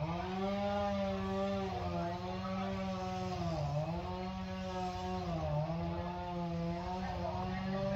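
A small engine running steadily, its pitch dipping briefly twice as it slows for a moment and picks up again.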